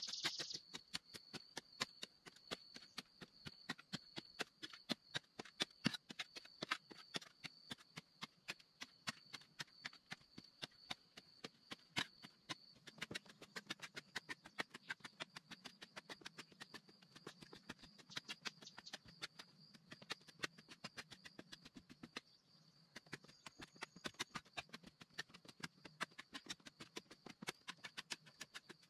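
A small hand tool tapping and chipping at a packed-earth wall in quick, irregular strikes, several a second, over a steady high-pitched insect drone.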